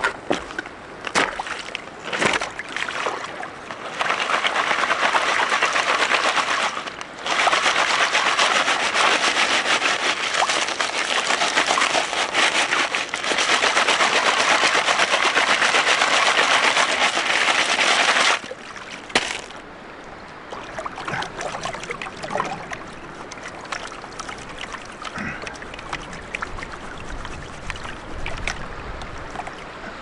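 Gravel rattling in a plastic gold-panning classifier sieve as it is shaken in shallow water, sifting fine material into the gold pan beneath. The rattle is dense and loud from about four seconds in, breaks off briefly, then runs to near the end. It is followed by quieter splashing and stones clicking.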